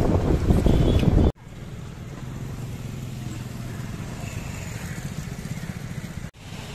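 Motorcycle riding noise with wind buffeting the microphone for about the first second. It cuts off suddenly to much quieter street ambience with a faint low hum of traffic.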